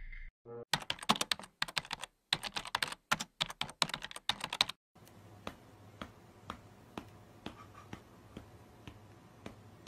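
Rapid typing on a computer keyboard in quick bursts of key clicks, broken by a short pause, stopping about five seconds in. After that, faint single ticks come about two a second.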